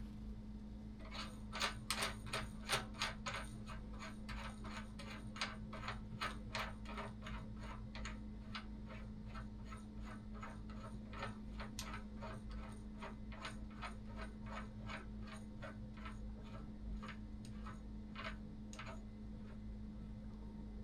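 Ratchet wrench clicking in a steady run of light, evenly spaced clicks, about three a second, louder at first, as the steering-stem nut on the mini bike's fork is worked. The clicks stop a couple of seconds before the end.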